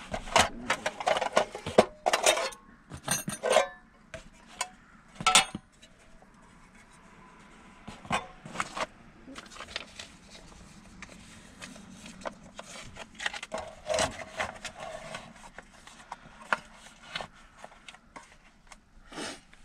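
Aluminium mess tins and camping cook kit being unpacked and handled: irregular clatters, clicks and rubbing of metal, in bunches with quieter gaps between.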